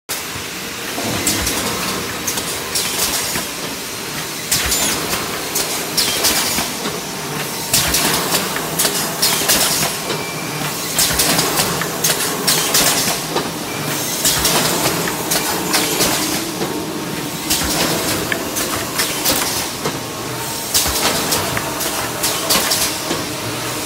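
Automatic PE-film-insert woven bag cutting and sewing machine running: a steady mechanical clatter and hum with short, sharp bursts of noise about once a second.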